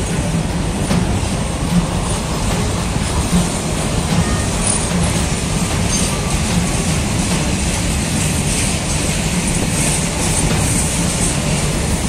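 Freight train wagons rolling past, a steady rumble of wheels on rails with a repeated clickety-clack as the wheels cross rail joints.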